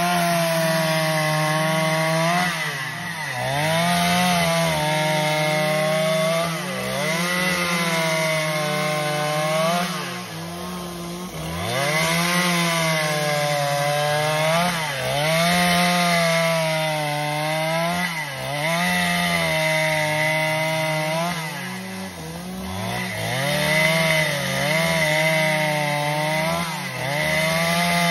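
Two-stroke chainsaw at high revs ripping lengthwise along a long timber beam to cut a board, its engine note sagging and recovering every couple of seconds.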